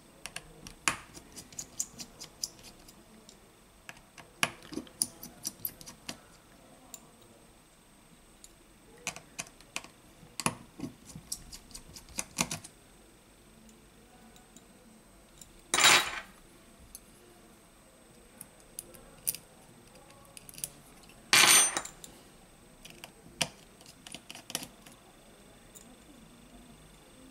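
Small metal repair tools clicking and tapping against the parts of an opened iPhone XS Max, in scattered light clicks. Two louder, brief clatters come a little past halfway and again about five seconds later.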